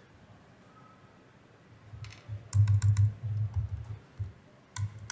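Typing on a computer keyboard: after a quiet start, a quick run of keystrokes about two seconds in, then a couple more near the end.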